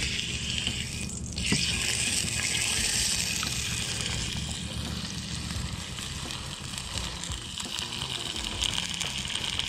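Meat sizzling in hot oil in a skillet on a wood-fired rocket stove. The steady hiss grows louder about a second and a half in as the first piece goes into the pan, and keeps on as more meat is laid in.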